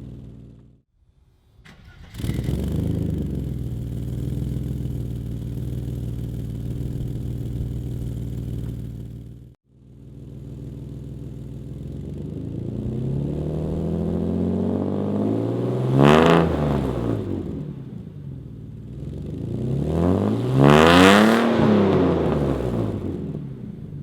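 Exhaust of a 1991 Mercedes-Benz 190E 2.6's straight-six, running through straight pipes and a Supertrapp muffler with 10 discs. It idles steadily, then is revved twice, each time rising in pitch to a peak and falling back to idle; the second rev comes near the end and is the loudest.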